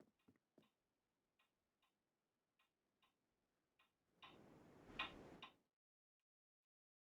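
Faint, short clicks or taps that come a few times a second and then grow sparse. About four seconds in, a second and a half of rustling noise with one sharp click in the middle, which cuts off suddenly into dead silence.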